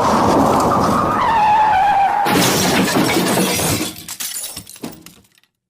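Car crash sound effect: a tyre squeal falling in pitch, then a sudden loud crash with glass shattering, followed by glass and debris clattering and ticking away for a few seconds before it cuts to silence.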